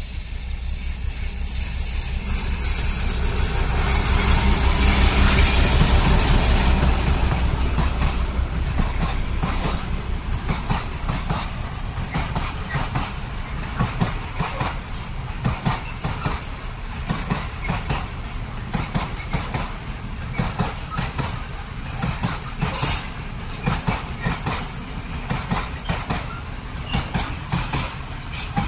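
A PKP SM48 diesel-electric locomotive passes with its diesel engine rumbling, loudest about five seconds in. A long string of open freight wagons follows, rolling by with the steady clatter of wheels over rail joints.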